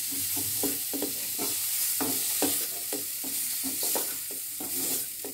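Oil sizzling in a metal kadai as green cauliflower florets fry, with a metal slotted spoon repeatedly scraping and knocking against the pan as the florets are stirred and lifted out.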